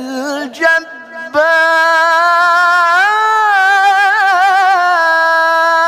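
Male Quran reciter (qari) in melodic tilawah style, holding one long, high note about a second and a half in. The note carries wavering vocal ornaments partway through.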